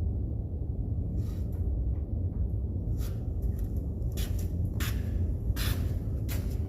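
Steady low rumble with a scattering of short metallic clicks and clinks from hand tools, socket and ratchet work on the truck's starter, starting about three seconds in.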